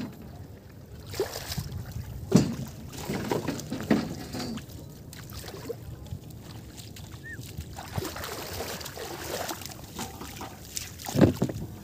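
Bare feet wading through ankle-deep water: irregular sloshes and splashes, with a few sharper splashes, one near the end.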